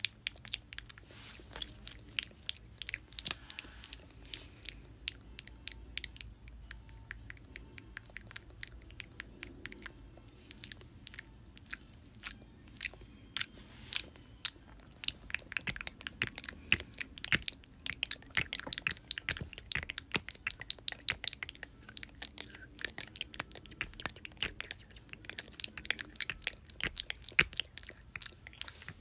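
Close-miked mouth sounds: many rapid, irregular wet clicks and smacks of the tongue and lips, growing denser about halfway through.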